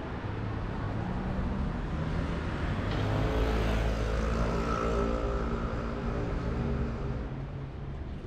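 Street traffic: a motor vehicle drives past, its engine growing louder to a peak midway and then fading away.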